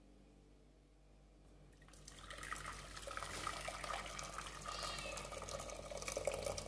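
Water poured from a stainless steel electric kettle into a stainless steel pot, a steady splashing stream that starts about two seconds in.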